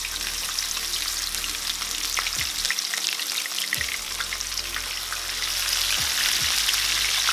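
Whole tilapia frying in hot oil in a pan, a steady sizzle full of fine crackles and spits. A second fish is laid into the oil partway through, and the sizzle grows louder from about five seconds in.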